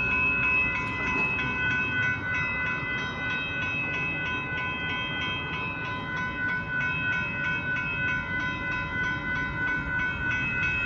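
Railroad crossing bell ringing steadily as a train approaches, its rumble underneath.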